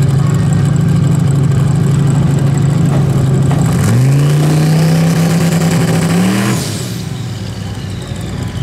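Drag-racing Jeep engine held at high revs on the starting line: a steady drone, then about four seconds in the pitch steps up and holds with a faint rising whine above it, climbs briefly, and cuts off sharply about six and a half seconds in, dropping back to a quieter lower running note.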